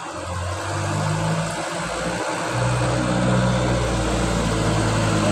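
An engine or motor running with a steady low hum that grows louder over the first two to three seconds, its pitch shifting a couple of times.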